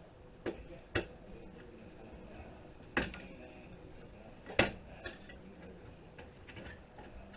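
Sharp clicks and clinks of hand tools and small parts as components are pried and pulled off a circuit board: four distinct knocks, the last and loudest about four and a half seconds in.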